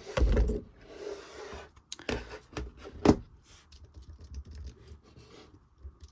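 Apple Magic Keyboard being handled: a thump as it is put down, a brief rub or scrape against the surface, and two sharp knocks. Then a run of light key clicks as its keys are pressed.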